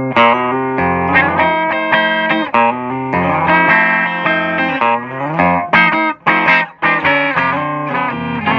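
Electric guitar played clean through a hand-wired Fender 5E3 tweed-style tube amp with 6V6 power tubes, a 5Y3 rectifier and a Vintage 30-type speaker: picked single notes and ringing chords with a few short stops between phrases.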